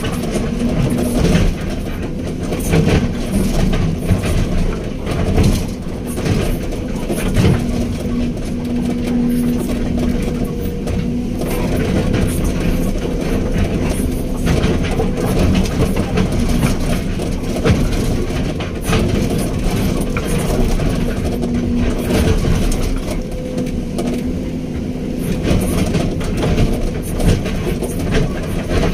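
Hydraulic excavator's diesel engine running steadily under work, with a steady hum and irregular clanks and knocks throughout.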